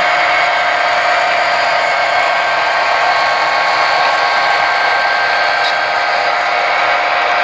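HO scale model diesel locomotive and covered hopper train rolling past, a steady mechanical whir of the motor and wheels on the track with a few constant high-pitched tones.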